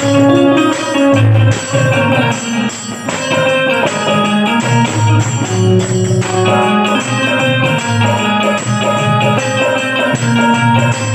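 Indian banjo playing a fast melody over a steady percussion beat.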